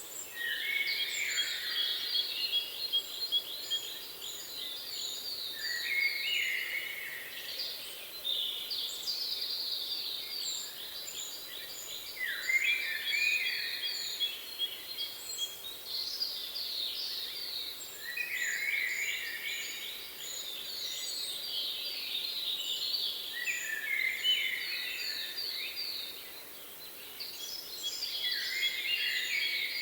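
Birds singing: a phrase of fast trills and chirps every four to five seconds, with a run of short, high, thin notes repeated above them, over a steady outdoor hiss.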